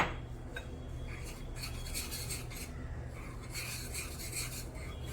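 Gram-flour batter being stirred with water in a deep plate, a utensil rasping against the plate in a run of quick strokes. A single sharp clink opens it.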